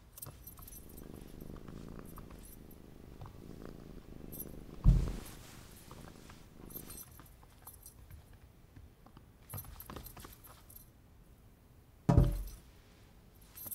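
A domestic cat purring, with the small metal tag on its collar jingling as it moves. Two loud thumps come, one about five seconds in and one near the end, where the cat leaps.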